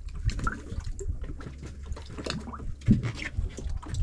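Water splashing and dripping in small irregular spatters, with scattered light knocks, over a steady low hum.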